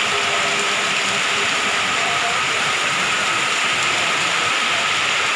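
Steady rushing hiss of a windstorm's strong wind, holding an even level with no gusts or breaks.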